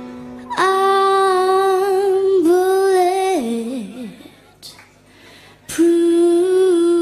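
A woman's voice humming a long wordless note into a microphone, sliding down and fading out about three and a half seconds in; after a short gap she takes up a second held note near the end.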